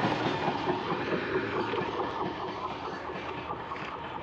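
Freight train wagons rolling past, wheels clattering on the rails, the noise fading steadily as the end of the train goes by.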